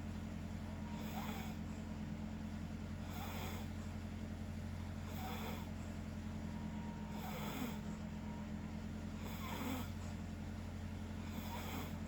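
People snoring, one snore about every two seconds, six in all, over a steady low hum.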